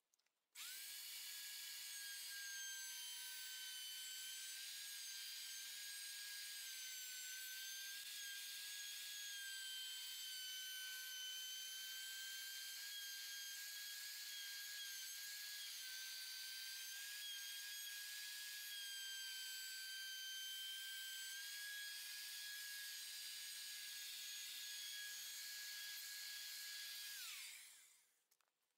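Electric router switched on about half a second in, running at a steady high whine with slight dips in pitch as it trims the overhanging Formica laminate flush along the edges. It is switched off near the end and winds down with a falling pitch.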